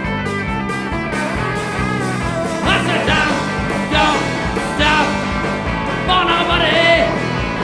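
A three-piece rock band playing live: electric guitar over drums and bass, with wavering, bending lead notes coming in about three seconds in.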